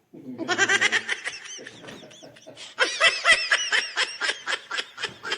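A person laughing hard: a long fit of rapid, high-pitched laughter pulses, which grows louder again about three seconds in.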